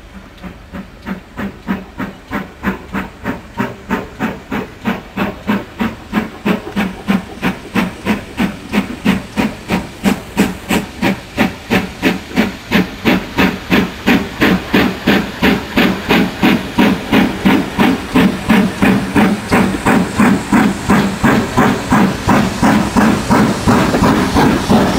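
Steam locomotive GWR 7828 Norton Manor, a two-cylinder Manor-class 4-6-0, working steam as it approaches, with a steady rhythm of chuffing exhaust beats and hissing steam. The beats grow steadily louder as it nears.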